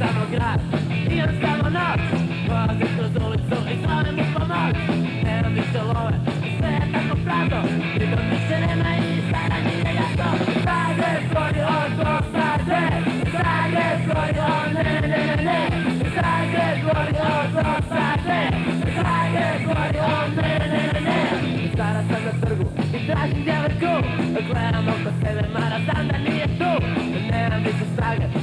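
Punk rock song: a full band with fast, steady drumming and a voice singing over it.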